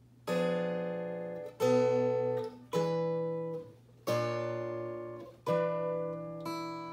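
Solo acoustic guitar playing slow chords: six chords struck a little over a second apart, starting a moment in, each ringing and fading before the next.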